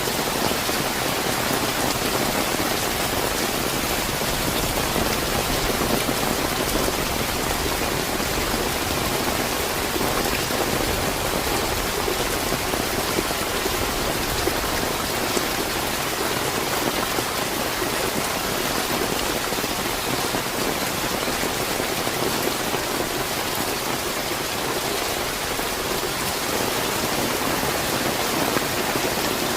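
Steady, fairly heavy rain falling in a continuous hiss of drops, with no thunder or distinct events.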